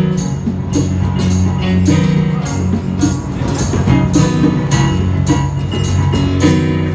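Live acoustic band music: a banjo and an electric keyboard playing a song, with a jingling hand percussion striking the beat about twice a second.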